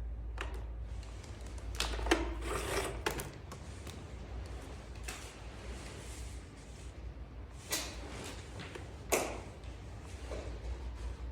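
Scattered knocks, clatters and rustles of handling as the vacuum cleaner's power cord is pulled out and plugged in; the motor is not yet running. A low steady hum lies underneath.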